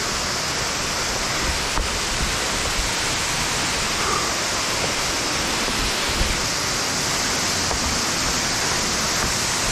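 A waterfall and the rocky stream below it rushing, a steady, full water noise.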